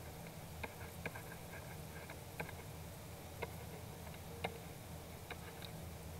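About six faint, sharp clicks at irregular intervals of roughly a second, from pen or mouse input while fill colour is dropped into a digital drawing, over a low steady hum.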